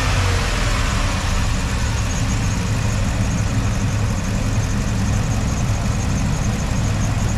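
Ford F250 V8 engine idling steadily, heard from the open engine bay, with a faint fast ticking over the idle.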